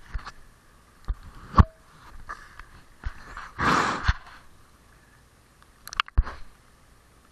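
Pool water splashing and slapping against a GoPro's waterproof case at the surface, heard through the case: a few sharp knocks, and a longer rush of water about three and a half seconds in.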